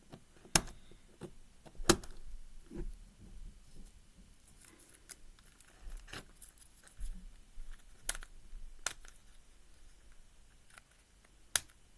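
Scattered sharp plastic clicks and small scratching sounds from a puzzle cube being handled while tape is picked off its pieces with fingernails. The clicks come singly and irregularly, the loudest about two seconds in.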